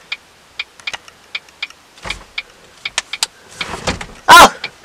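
Light clicks inside a parked car, about two or three a second, then two loud, short vocal cries near the end, the pitch rising and falling in each.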